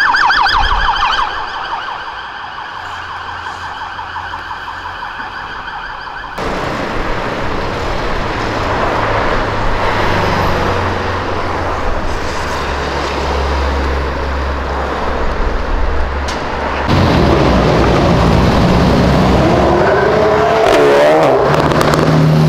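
Ambulance siren in a fast warble, fading out within the first couple of seconds, followed by steady street traffic with cars passing. Near the end an engine revs up in rising sweeps.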